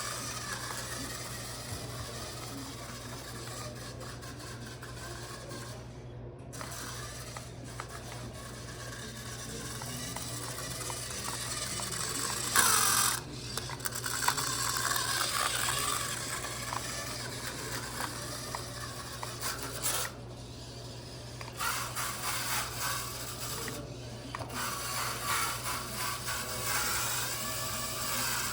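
Off-road RC car's motor and gears whirring as it is driven at speed, rising and falling with the throttle and cutting out several times. There is a sharp knock about halfway through.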